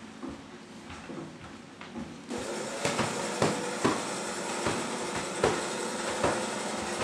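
Large sheets of paper being shaken and crumpled by hand, crinkling. About two seconds in a steady hiss comes up under it, with sharp crackles every half second or so.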